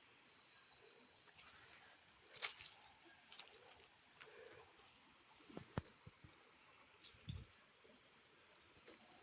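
Insects chirring steadily, a high continuous buzz with a shorter chirp repeating at even spacing beneath it. A few faint clicks and low knocks come through over it.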